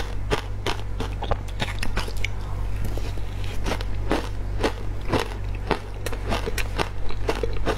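Close-up chewing and crunching of crushed ice dusted with matcha powder: rapid, sharp crackling crunches, several a second, with a steady low hum underneath.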